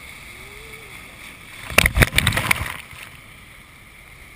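Rushing whitewater of the Colorado River in rapids at very high flow, a steady hiss. About two seconds in comes a loud crackling burst lasting about a second, like water slapping and splashing close to the microphone.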